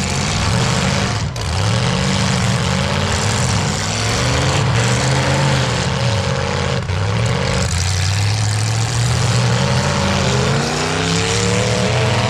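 Demolition derby car engines revving up and down again and again over a dense, steady wash of noise.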